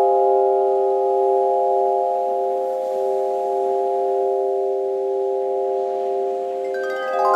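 Kailani, a tuned metal-tube sound sculpture in the Dreaming Dolphin tuning, ringing on after mallet strikes, with many notes sustaining together and slowly fading. Near the end a quick run of mallet strikes brings in new, brighter notes and the sound swells again.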